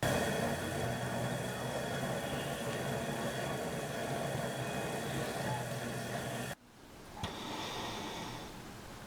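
A motor-driven machine running steadily with a constant hum. It cuts off abruptly about six and a half seconds in, then a quieter machine sound swells and fades, with a single click.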